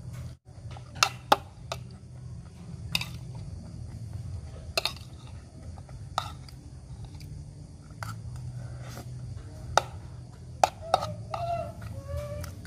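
Metal spoon clinking and scraping against a melamine plate while eating rice, about ten separate sharp clicks over a steady low hum. Short voice-like calls come in near the end.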